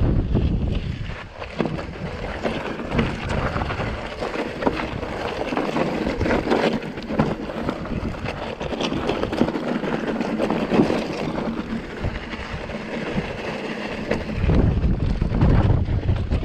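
Mountain bike riding down a rough dirt trail: tyres rolling and crunching over stones, with the chain and bike clattering on the bumps and wind buffeting the microphone, the buffeting heaviest right at the start and again for the last two seconds.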